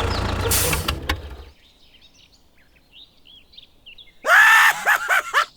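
A small mini-tractor engine running steadily, cut off after about a second and a half. Faint bird chirps follow, then a sudden loud squealing sound with swooping pitch near the end.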